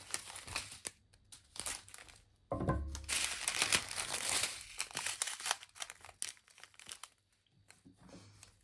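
Small plastic bags of diamond-painting drills crinkling and tearing as they are handled and opened, with quick clicks throughout and a denser, louder stretch of rustling from about two and a half seconds in.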